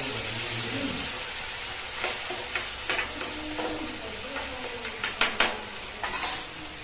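Chopped onion, garlic and tomato sizzling in oil in a kadhai while a spatula stirs them, with sharp clicks and scrapes of the spatula against the pan, the loudest two a little after five seconds in.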